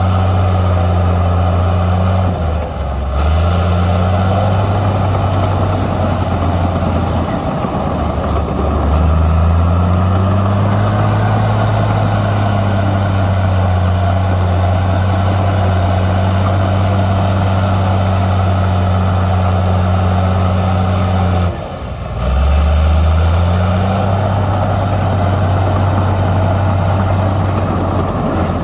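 Heavy diesel engine of earthmoving machinery running under changing load, its low note rising and falling. Two short drops in level come about two and a half and twenty-one seconds in.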